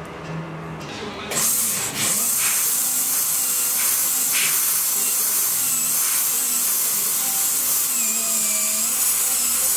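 Dental handpiece turning a Gates Glidden drill inside a root canal, widening the post space after the gutta-percha has been removed. A steady high hiss starts about a second in, with faint wavering whine tones over it.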